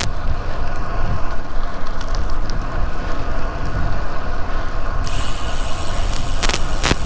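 Wind rushing over the microphone of a camera on a moving road bike, with road noise underneath. A brighter hiss comes in about five seconds in, and a few sharp clicks sound near the end.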